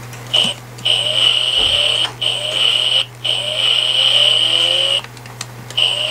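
Electronic sound effect from a baby's toy car: a steady, high-pitched electronic tone that plays in long stretches broken by short gaps, with a lower rising note repeating beneath it.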